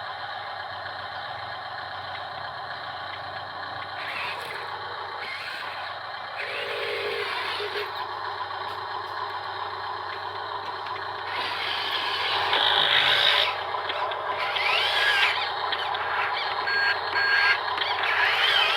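Small electric motors and gearboxes of radio-controlled construction vehicles whining as they drive and work. The whine gets louder in the second half, with its pitch rising and falling in quick arcs as the motors speed up and slow down.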